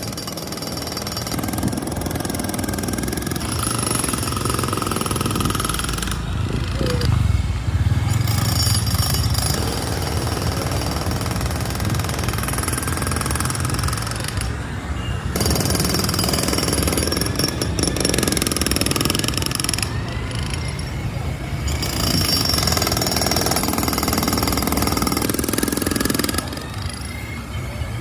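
Jackhammer breaking up concrete pavement, hammering rapidly and continuously.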